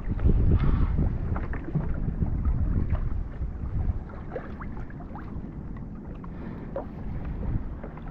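Wind buffeting the microphone and water slapping against a fishing kayak's hull, with scattered small ticks and splashes. The rumble is louder for the first four seconds, then drops.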